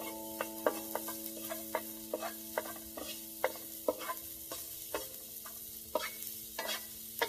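Wooden spatula stirring minced garlic and chili as they fry in a wok: irregular knocks and scrapes of the spatula against the pan, about two a second, over a steady sizzle.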